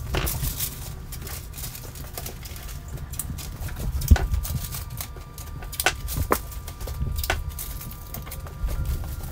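Handling noise from masking work: scattered taps, clicks and crinkles of masking paper and plastic sheeting, with a sharper knock about four seconds in.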